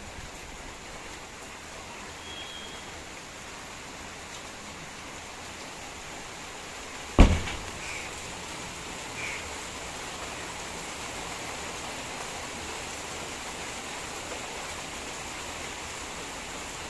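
Steady hiss of heavy rain falling. A single loud, sharp thump about seven seconds in, with a couple of faint short chirps after it.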